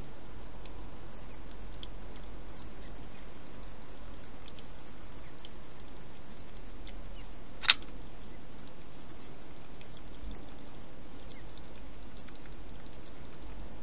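Steady hiss from a night-vision camera's microphone, with faint scattered ticks and one sharp click about eight seconds in.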